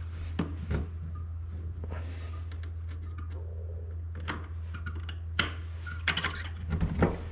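A small screwdriver prying at the steel retaining ring of a Vespa clutch pack, giving a scatter of sharp metallic clicks and scrapes. The loudest cluster comes near the end as the ring works loose. A steady low hum runs underneath.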